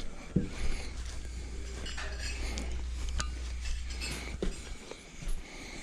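Scattered light clinks and knocks of hard objects being handled, over a steady low rumble.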